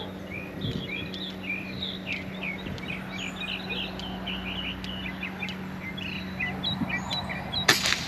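Small birds chirping and calling over a steady low hum, then a single sharp rifle shot near the end that drops the iguana it was aimed at.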